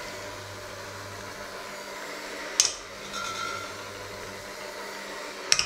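Electric hand mixer running in a stainless steel bowl, with a steady motor hum. Its beaters knock sharply against the bowl twice, about two and a half seconds in and near the end, and the bowl rings briefly after each knock.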